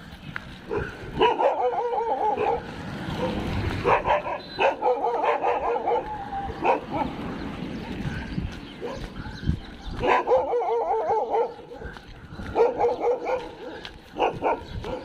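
Dogs whining and yipping in four warbling bursts of a second or so, with short sharp yaps in between.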